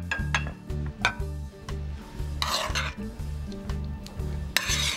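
A metal spoon clinking and scraping in a pan as pan sauce and vegetables are spooned over chicken on a plate, with two short scrapes, one midway and one near the end. Background music's bass line runs underneath.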